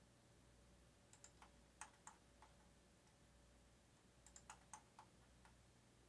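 Light plastic button clicks in two quick clusters, one about a second in and another about four seconds in, over a faint steady hum.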